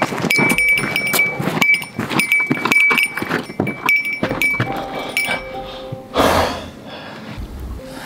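Metal camping gear clinking with a ringing, bell-like note in time with walking steps, over footsteps crunching on dry leaf litter. About six seconds in, a brief rustling swish.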